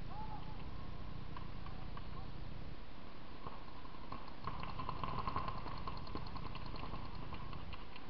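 Paintball markers firing in rapid strings of sharp pops, densest about halfway through, over a steady low rumble.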